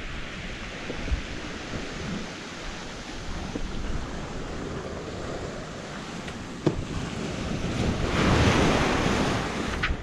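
Ocean surf washing onto a sandy beach, with wind buffeting the microphone. A single sharp knock sounds about two-thirds of the way in, and the surf swells louder near the end as a wave runs up the sand.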